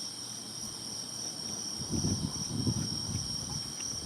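Steady, high-pitched chorus of insects, crickets by its sound, chirring without a break. About two seconds in, a low, muffled scuffling sound rises over it for about a second.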